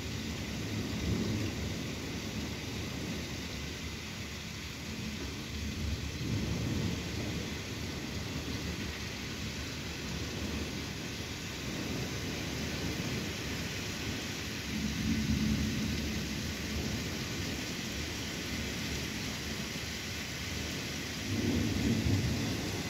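Heavy rain pouring steadily through a thunderstorm, with low rolls of thunder swelling about four times, the strongest about fifteen and twenty-one seconds in.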